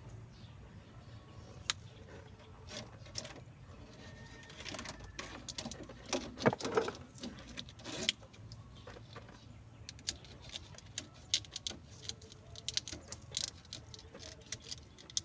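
Hands working on car alarm wiring and parts: scattered small clicks, taps and rustling, with a louder cluster of handling noise about six to eight seconds in.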